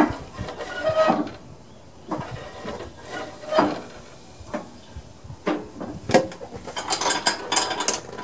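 Metal clanks and clicks from the deck lever and linkage of a Snapper SR1230 rear-engine riding mower being worked by hand, a sharp knock about every second, some ringing briefly, then a quick run of clicks near the end.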